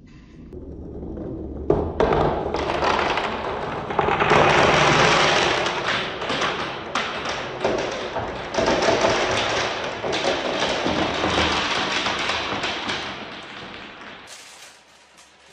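Many balls rolling and clattering down a wooden marble run: a continuous rumble packed with clacks and knocks. It builds over the first few seconds and fades away near the end.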